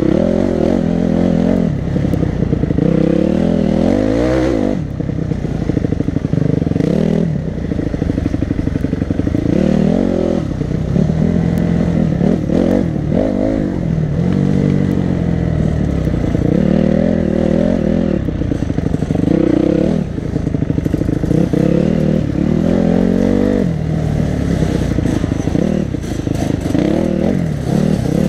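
Enduro motorcycle engine heard close up from the rider's helmet, its revs climbing and dropping again and again as the bike accelerates, shifts and backs off along a rough dirt trail.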